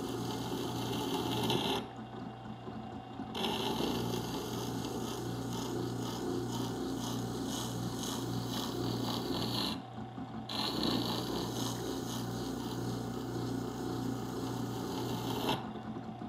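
Rikon 8-inch wet sharpener's motor humming steadily while a chisel held in a jig grinds against the water-cooled stone with a gritty scraping, establishing a new bevel face. The scraping drops out briefly about two seconds in and again around ten seconds, and stops shortly before the end while the motor keeps running.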